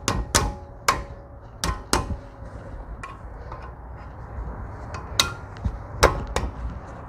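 Sharp metallic clicks and knocks, some ringing briefly, as steel brake pads and their clips are pushed and tapped into the caliper bracket. There are several in the first two seconds, a quieter stretch, then a few more about five to six and a half seconds in.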